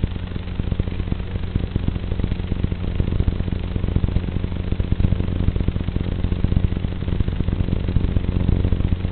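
A steady, low, crackly hum.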